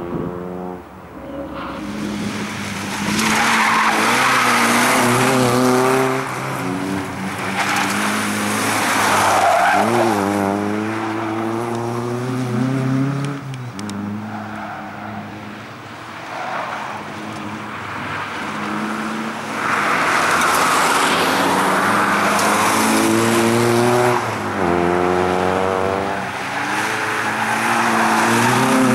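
Nissan Sunny hatchback driven hard: the engine revs rise and fall again and again in the low gears, and the tyres squeal in several long spells as the car slides through the turns.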